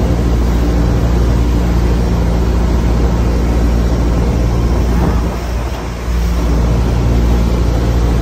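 Engine of a small wooden tour boat running steadily under way, a loud low drone over a rush of wind, dipping slightly for about a second halfway through.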